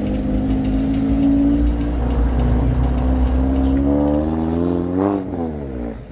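Car engine running loud and steady, then revving up over about a second and a half to a peak about five seconds in, after which the pitch falls quickly and the sound fades.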